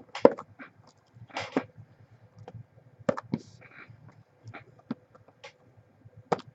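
Scattered sharp taps and clicks with a few short rustles: boxes of trading cards being handled and set out on a table.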